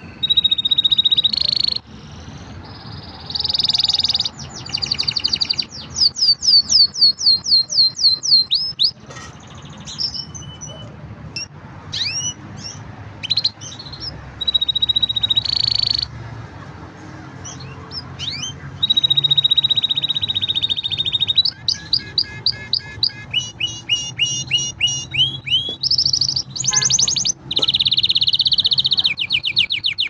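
Green canary singing a long, varied song: rolling notes held at a high pitch, trills, and runs of quick rising whistles, with short pauses between phrases.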